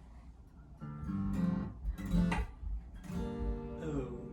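Martin Road Series acoustic-electric guitar strummed: a few chords starting about a second in and left to ring. It is played as a test of its newly refitted soundhole pickup controls.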